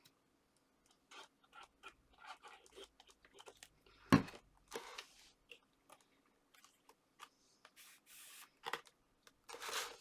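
Paper card being handled and pressed into place: scattered short rustles and scrapes, with one sharp knock about four seconds in.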